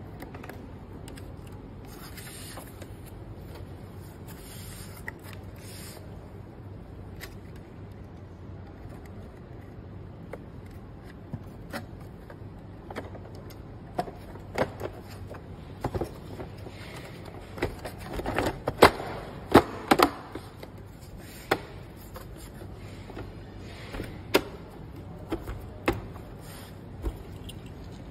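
Plastic clicks, taps and knocks from a projector's plastic casing and parts being handled and fitted together. They come as scattered sharp clicks, loudest in a cluster about two-thirds of the way through, over a steady low hum.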